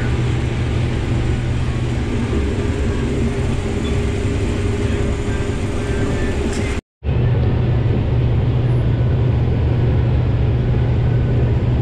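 Combine harvester running steadily while harvesting corn, a constant low engine drone. The sound cuts out completely for a moment about seven seconds in, then resumes unchanged.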